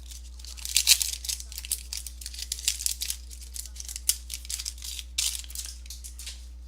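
A trading card pack wrapper crinkling and tearing in irregular rustles as it is opened, over a steady low electrical hum.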